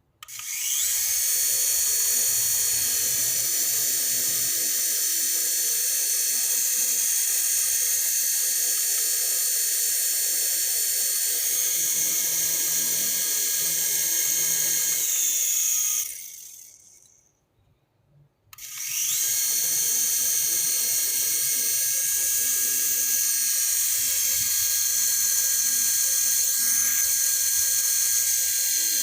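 Small electric toy RC helicopter's motor and rotor blades running with a steady high-pitched whine. It spins down and stops about two-thirds of the way through, then spins up again and runs on.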